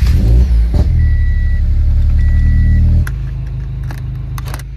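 Subaru BRZ flat-four boxer engine starting from cold: it catches with a sudden rise and holds a loud, fast idle, then runs more quietly after about three seconds. Two short electronic beeps sound about a second and two seconds in.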